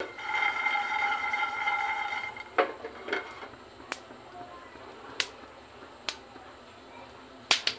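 Peanuts dry-roasting in a nonstick frying pan on a gas burner. A steady ringing tone lasts about two seconds at the start, then the pan sits on the flame with a faint hiss and scattered sharp clicks and taps.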